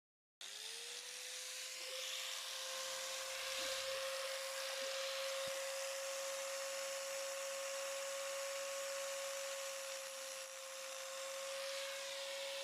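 Electric power tool cutting into the steel shell of a refrigerator compressor along its seam. The motor spins up about half a second in, then holds a steady whine under a harsh grinding hiss.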